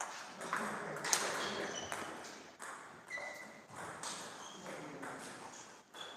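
Table tennis balls clicking off bats and the table, a quick run of hits at irregular spacing, some with a short high ring.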